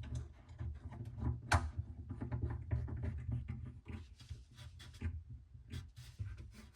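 Bar clamps being tightened and set on a wooden spacer: a run of small irregular clicks and knocks over a low rumble, with one sharper click about one and a half seconds in.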